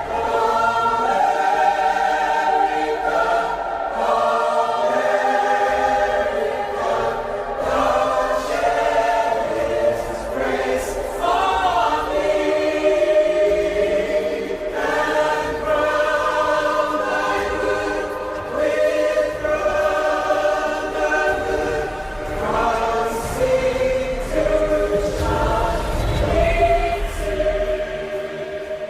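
A choir singing slow chords, each held for a long time. A low rumble swells underneath near the end.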